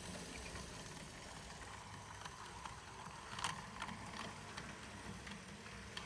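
OO-gauge Airfix Royal Scot model train running slowly: a faint, steady hum of the locomotive's motor and gearing, with the wheels of the train clicking now and then over rail joints and pointwork. The loudest click comes a little after three seconds.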